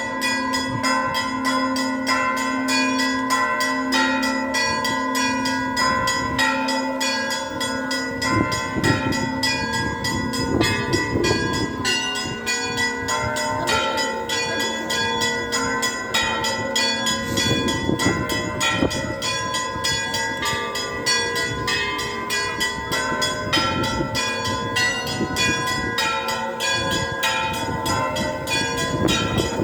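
Orthodox church bells rung together in a continuous peal: quick, steady strokes on the smaller bells ring over the sustained tones of larger ones, and a lower bell pulses beneath for the first several seconds.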